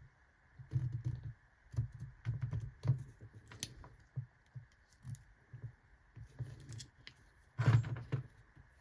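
Irregular light clicks, taps and clinks of small hard parts being handled and set down on a work surface, with the loudest cluster near the end.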